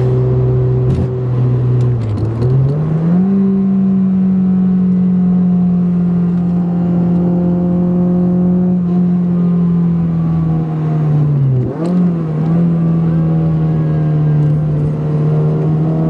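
2008 Honda Civic Si's tuned 2.0-litre four-cylinder running through a catless header and full race cat-back exhaust, pulling at steady high revs. Its note dips briefly and climbs back twice, about two seconds in and about twelve seconds in.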